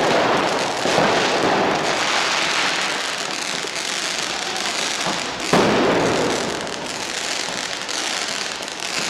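Street fireworks going off: rockets climbing and ground fountains spraying sparks make a continuous dense hiss and crackle. Sharp bangs come about a second in and, loudest, about five and a half seconds in.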